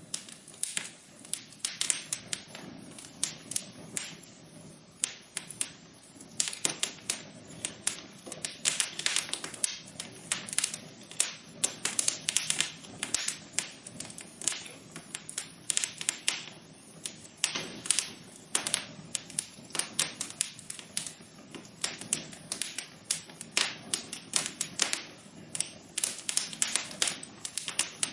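Wood fire crackling in a fireplace: a dense, irregular run of sharp pops and snaps, some louder than others, over a soft hiss.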